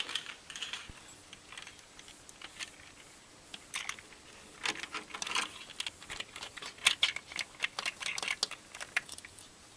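Hanging toy of plastic bottle caps strung together and filled with dry food, clicking and rattling irregularly as a ferret bites and tugs at it. The clicks start a few seconds in and come thickest over the last half.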